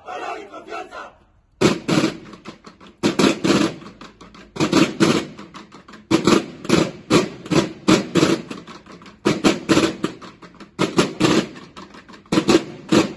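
Marching snare drums of a drum-and-bugle corps playing a cadence together: sharp, rhythmic strokes in tight groups, starting about a second and a half in.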